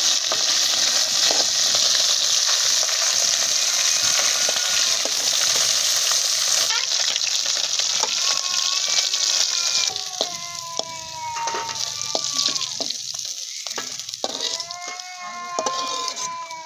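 Fish frying in hot oil in an iron kadhai: a loud steady sizzle while a metal spatula stirs and turns them. About ten seconds in the sizzle dies down and the spatula scrapes the pan, with some squealing tones, as the fried fish are lifted out.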